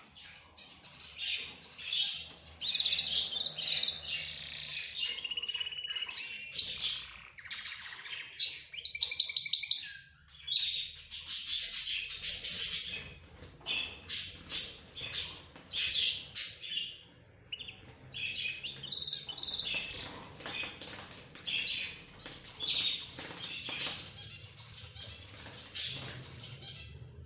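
A mix of small cage birds (budgerigars, lovebirds, zebra finches and a canary) chirping and calling over one another without pause, with short, rapid trills mixed in.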